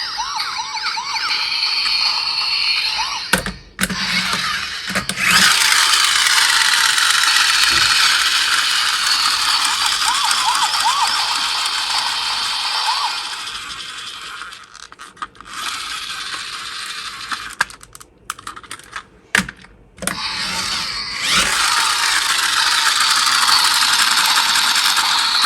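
Toy police car's electronic siren sound effect playing through its small tinny speaker: a steady wailing with fast pitch wobbles. It is cut off and restarted by sharp clicks several times, with the longest breaks a little past the middle and about three quarters in.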